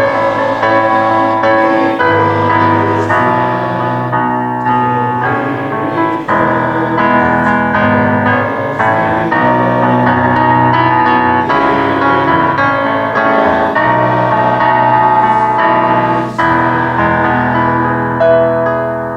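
A keyboard instrument, heard by the tagger as piano, plays slow, sustained chords in a quiet, hymn-like piece of instrumental church music. No voices can be heard.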